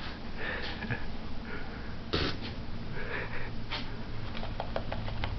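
Short breathy puffs and sniffs as air is blown into an American Cocker Spaniel's ear, one puff stronger about two seconds in. Near the end comes a quick run of light clicks as the dog stirs on the couch.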